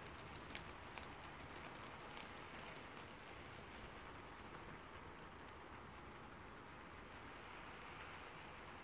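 Faint, steady scratchy rustle of a stiff bristle brush dabbing and scrubbing acrylic paint over a textured canvas board, with a few light taps of the brush about half a second and a second in.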